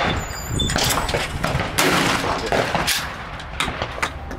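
Shotgun shots on a five-stand clay course: several sharp reports and knocks over a steady low rumble.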